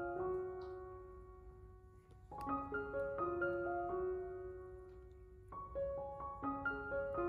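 Background piano music: a slow melody in short phrases of stepping notes, each ending on a held note that fades away.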